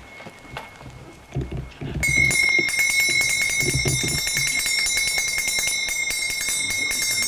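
Small brass hand cymbals (kartals) start being struck about two seconds in and keep going in a fast, steady rhythm, each clash ringing on in a bright, high metallic tone.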